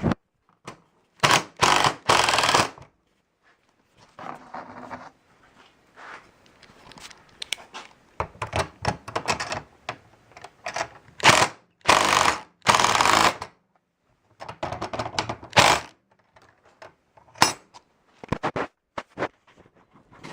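Power drill with a nut driver running in several short bursts of a second or two each, driving fasteners into garage door hardware, with a few small clicks of parts being handled between bursts.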